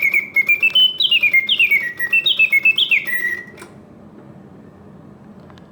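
Bellows-driven whistle of a 1955 Karl Griesbaum mechanical singing birdcage, singing a run of sliding, downward-stepping chirps. About three and a half seconds in it stops and falls into its pause. The long pause is the sign of bellows and mechanism in pristine condition.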